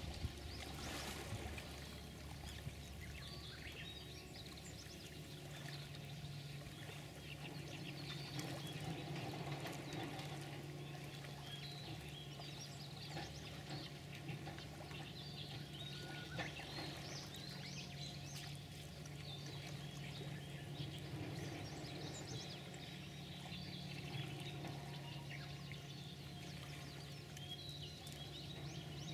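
Running water trickling and pouring steadily, with scattered faint bird chirps. A low steady hum comes in about five seconds in.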